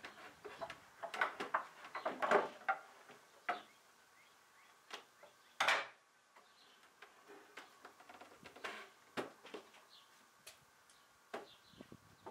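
Small wooden box on an old dresser knocking, clicking and creaking as it is worked back and forth to pull it loose. Irregular wooden knocks, the loudest about two seconds in and again near the middle.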